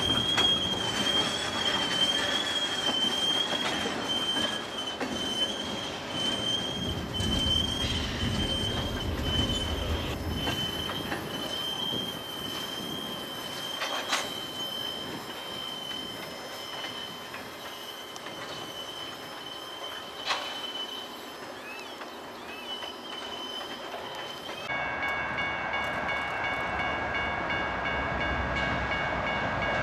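Freight cars rolling slowly through a rail yard, their wheel flanges giving a steady, slightly wavering high-pitched squeal, with two sharp metallic knocks partway through. About 25 seconds in, the sound changes abruptly to a railroad grade crossing's warning bell ringing as the signals flash and the gates come down.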